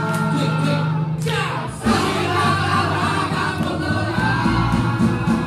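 Music with singing: held notes, then a falling sweep about a second and a half in, after which the music carries on with a regular beat.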